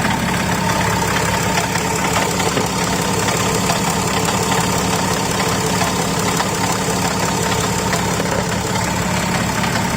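BMW X6 engine idling steadily with a rotational noise from the front of the engine, which the mechanic thinks is probably the water pump.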